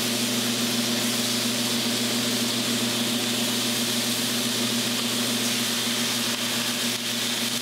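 A steady mechanical hum with a continuous hiss over it, the even running noise of a kitchen stovetop. It holds unchanged.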